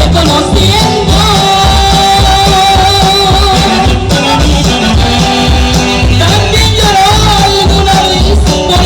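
Loud Latin music played through a party sound system: a singing voice with held notes over a steady bass beat and shaker-type percussion.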